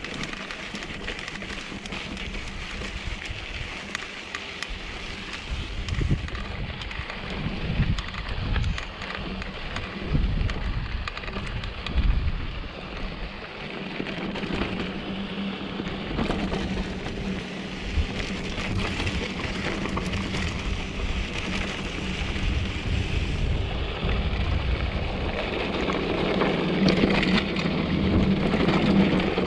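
A 2014 Giant Trance 3 mountain bike rolling along a dirt trail: a steady crunch of tyres on gravel, broken by short knocks as the bike hits bumps, growing louder in the last few seconds.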